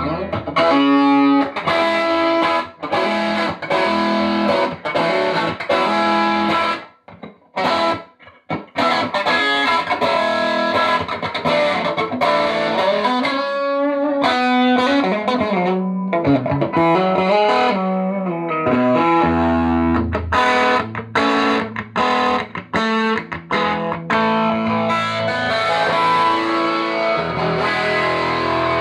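PRS electric guitar played through a Fender Excelsior Pawn Shop Special tube combo (push-pull 6V6 power tubes, 15-inch speaker), freshly repaired and rebiased for early breakup. It plays strummed chords and single-note licks, with a couple of short stops about seven to eight seconds in and a run of bent notes in the middle.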